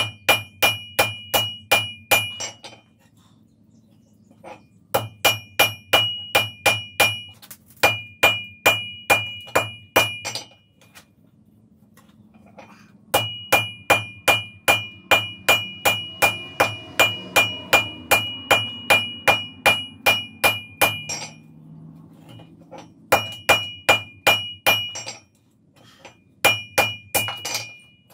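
Hand hammer forging hot wrought iron held in tongs on an anvil: runs of quick blows, about three a second, each ringing clear and high off the anvil. The runs are broken by short pauses.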